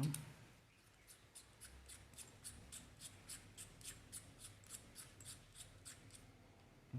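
Faint rapid clicking, about four or five small clicks a second for several seconds, as the screw-on battery compartment cap of a Boya BY-M1 lavalier microphone is twisted tight over a newly fitted cell.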